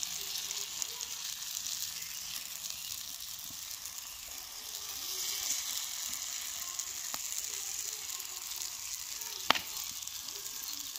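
Radish paratha batter sizzling steadily in ghee on a hot tava. Near the end comes one sharp click, the metal spatula striking the pan.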